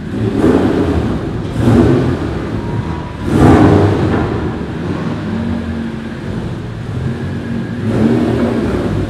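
Car engine revving in a few throttle blips over a steady idle, inside a concrete parking garage; the strongest blip comes about three and a half seconds in.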